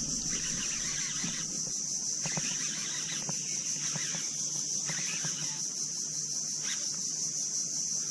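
Steady high-pitched insect drone from the mangroves, unbroken throughout, with a few faint ticks.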